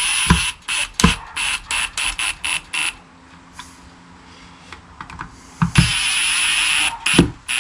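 Ryobi cordless impact driver driving wood screws through a subwoofer driver's mounting flange into an MDF box: a run of short start-stop hammering bursts over the first three seconds, then one steady burst of about a second near the end.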